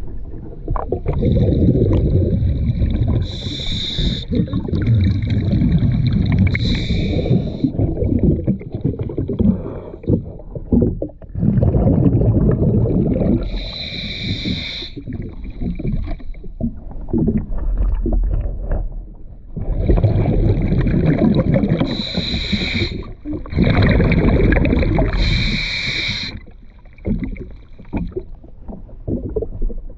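A diver breathing through a demand regulator underwater: about five short hissing inhalations, each followed by a long bubbling exhalation, in a slow uneven cycle.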